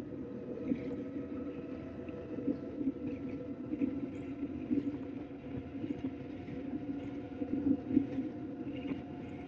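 Tandem mountain bike rolling fast on asphalt: a steady hum from the tyres and drivetrain, with light rattles over it.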